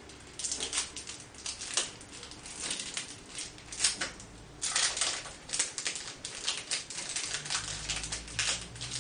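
Small plastic sticker packet crinkling and rustling in the hands as it is opened, in many quick, irregular crackles.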